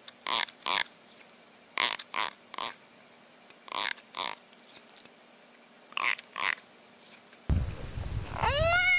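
Teeth of a plastic comb strummed in short rasps, nine of them, mostly in pairs. About seven and a half seconds in comes a rumble of handling. Near the end a bullfrog being picked up starts a long rising scream.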